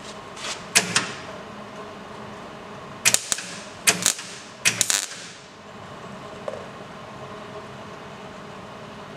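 Wire-feed (MIG) welder laying short stitch welds on a car's sheet-steel body seam. There are four brief bursts of arc: one just under a second in, then three in quick succession between about three and five seconds in, over a steady hum.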